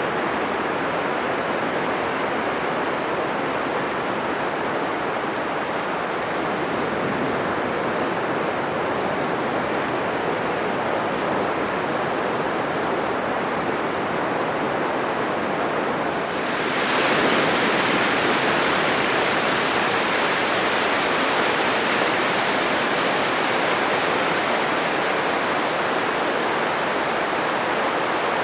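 Atlantic Ocean surf breaking on a sandy beach, a continuous rushing wash of waves. About halfway through it turns suddenly louder and hissier and stays that way.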